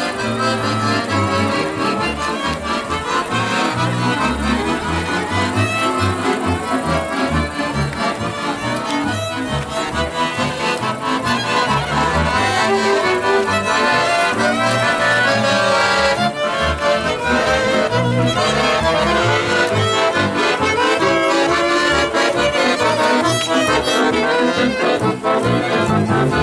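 Music led by an accordion, with a steady pulse in the bass.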